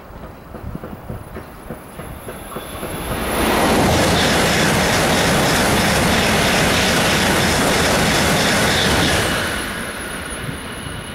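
Shinkansen bullet train passing at speed close by: a rushing noise builds over about a second, holds steady and loud for about six seconds, then dies away as the train clears.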